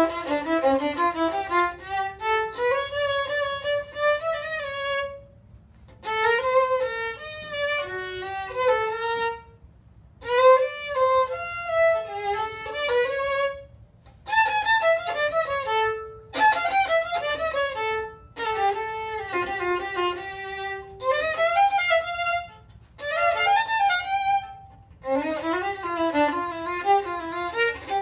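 Solo violin, bowed and unaccompanied, playing the second-violin part of an orchestral piece. It plays in phrases of a few seconds, each broken off by a short pause.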